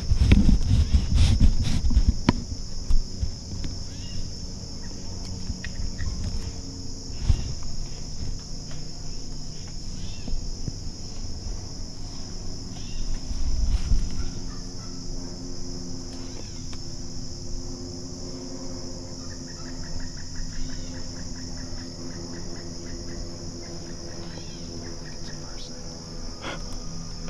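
Insects buzzing steadily at a high pitch in the swamp woods, with soft rustles and knocks of handling at the start and a short run of faint rapid ticks about twenty seconds in.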